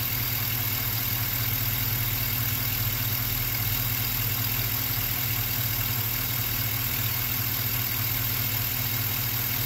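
Truck engine idling steadily, warmed up to operating temperature, with an even low hum.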